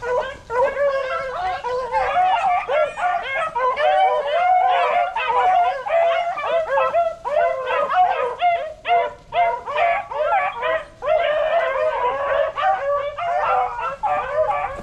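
A pack of beagles baying and howling together, many voices overlapping with no pause. This is the pack in full cry on a rabbit's trail.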